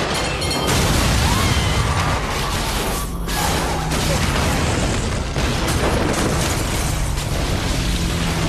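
Film sound effects of an earthquake destroying a city: continuous rumbling and crashing of collapsing buildings and debris, with booms. A music score runs underneath, holding long low notes.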